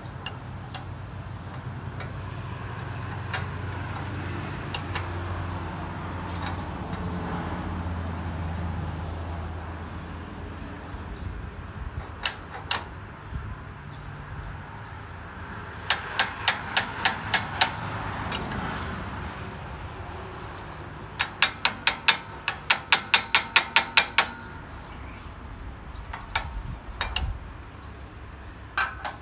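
Quick runs of sharp metal-on-metal clicks, about five a second, in two bursts around the middle with a few single clicks between, from hand work on a motorcycle crankshaft held in a press. A low steady rumble lies underneath, mostly in the first half.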